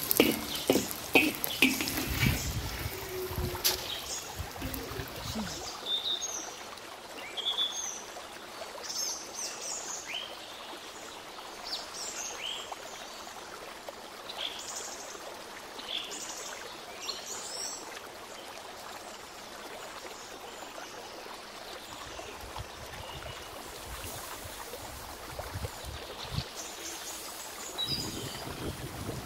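Birds chirping in short rising calls over a steady hiss, with metal clattering and scraping against a pan in the first few seconds.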